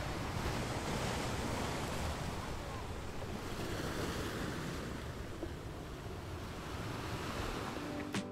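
Steady outdoor wind and water noise, an even rushing hiss with no distinct events, with wind buffeting the microphone.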